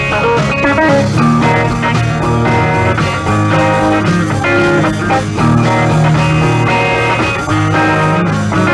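Rock band playing a blues-rock instrumental passage, with guitar to the fore.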